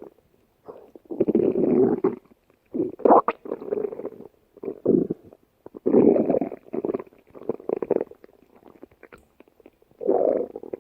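Stomach growling in a string of irregular rumbles, some short and some about a second long, with pauses between them.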